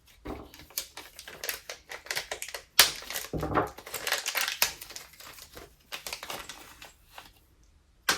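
Small brake master cylinder parts being handled and sorted by hand: a run of light clicks and rustling, with one sharp click about three seconds in, thinning out near the end.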